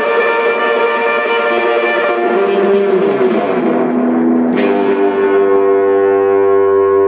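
Gibson Les Paul Special electric guitar played through an amplifier in a blues jam: sustained notes, a note sliding down in pitch about three seconds in, then a sharp pick attack and a chord left ringing.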